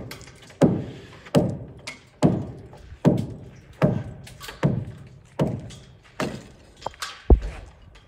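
Hammer blows in a steady rhythm, about one strike every 0.8 seconds, each followed by a short echoing decay. The strikes grow lighter near the end, then comes one heavy, low thud.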